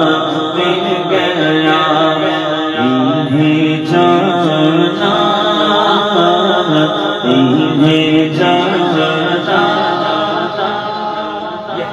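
A man singing a naat through a microphone and PA loudspeakers, drawing out long, wavering melismatic notes.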